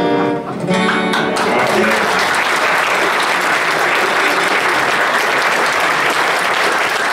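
The last acoustic guitar chords of a song ring out, and about a second in an audience breaks into steady applause that fills the rest.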